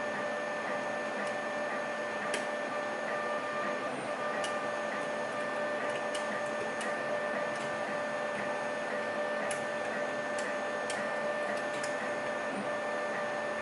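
Faint, irregular metallic ticks of a pick and tension wrench working spool pins inside a pin-tumbler lock, a click every second or so, over a steady electrical hum and hiss.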